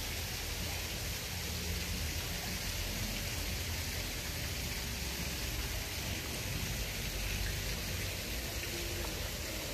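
Steady rain falling on wet paving and pool water: an even, unbroken hiss of drops, with a low rumble underneath.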